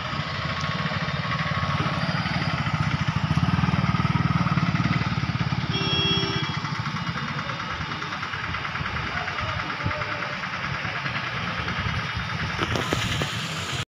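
Motorcycle engine running close by over general street traffic, loudest a few seconds in, with a short beep about six seconds in.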